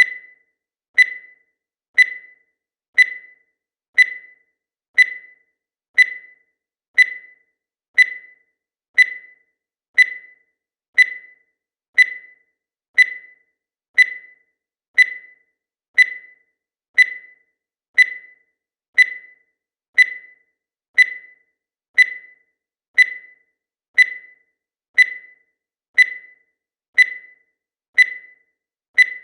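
Digital timer beeping once every second as it counts the seconds: a short beep on each second that dies away quickly, with silence between beeps.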